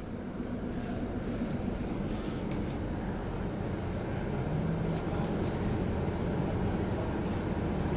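Interior noise of an Alexander Dennis Enviro400 double-decker bus heard from the upper deck while it drives. A steady low engine and road rumble grows gradually louder, with a faint brief high squeal about five seconds in.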